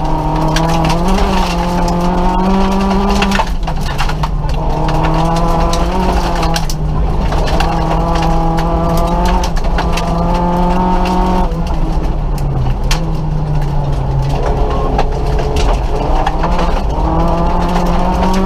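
Nissan Micra rally car's engine at full stage pace, heard from inside the cabin: the revs climb, then drop sharply at each gear change or lift, about five times. Underneath runs a constant clatter of small knocks from gravel and stones striking the car.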